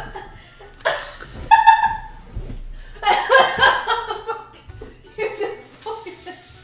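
People laughing hard, with loud high-pitched laughs about a second in and again around three to four seconds in.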